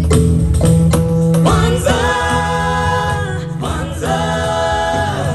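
Choir singing long held notes over percussion and bass, the opening of a song about the days of Kwanzaa.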